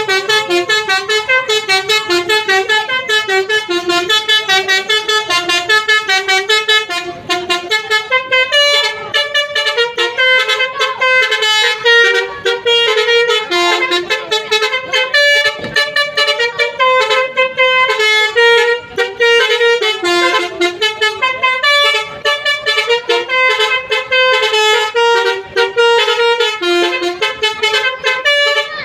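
Basuri-type telolet bus horn, a multi-tone musical air horn, playing a fast tune of short notes that step up and down with barely a break.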